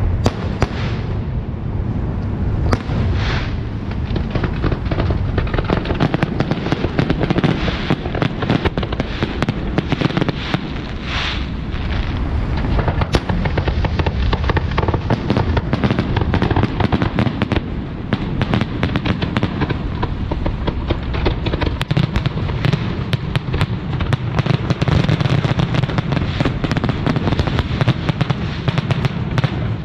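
Aerial fireworks going off in a dense, continuous barrage: rapid overlapping bangs and crackles over a steady low rumble, with no break.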